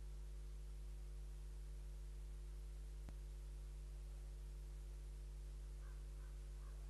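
Steady electrical hum with a low hiss, with one faint click about three seconds in and a few faint short high calls near the end.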